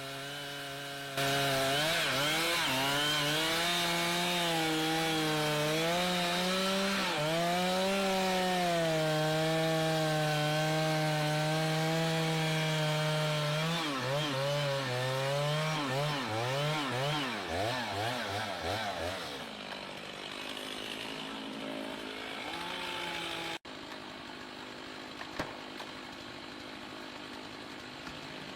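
Chainsaw engine running at high revs under cutting load. About a second in it jumps to a loud, steady pitch and holds for over ten seconds. It then revs up and down unevenly and drops back to a quieter, lower running. The sound cuts off abruptly near the end, leaving a quieter, steady background.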